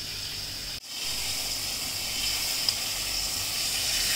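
Steady hiss of oil sizzling in a frying pan. It cuts out for an instant about a second in.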